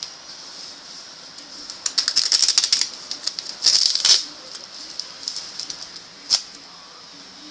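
Packaging being handled during an unboxing: two bursts of rapid crinkling and crackling, with a single sharp click near the end.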